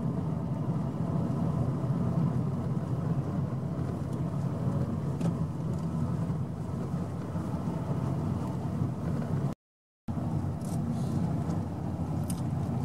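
Steady engine and road noise from inside a car driving slowly behind a group of road cyclists. The sound cuts out completely for about half a second roughly three-quarters of the way through.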